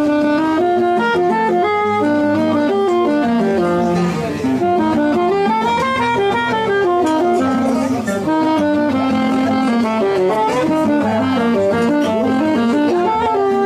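Saxophone playing a fast jazz melody in quick rising and falling runs, with a second instrument accompanying it underneath.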